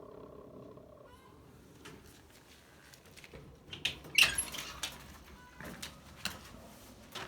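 Pet hen in a nest box making strange calls: a steady, pitched, drone-like call for about the first second, then scattered short calls and clicks, with the loudest call about four seconds in.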